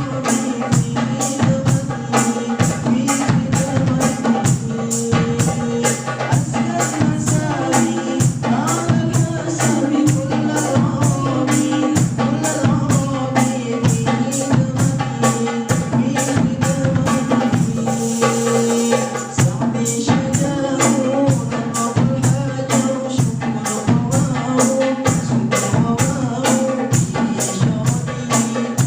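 A sholawat ensemble playing a devotional song: a steady, fast beat on hand percussion under a held, winding melody.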